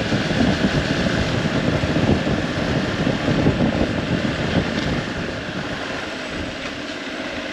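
Motorcycle riding with wind noise on the microphone: the single-cylinder engine of a Hero Xpulse 200 4V running under the rush of wind, a little quieter in the last two seconds.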